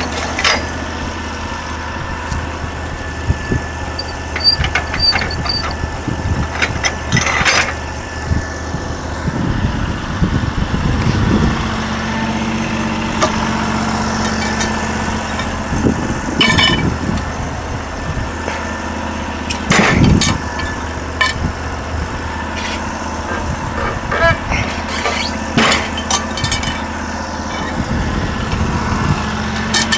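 Portable sawmill's 16 hp engine idling steadily, with occasional sharp knocks and clunks as logs and boards are handled on the mill.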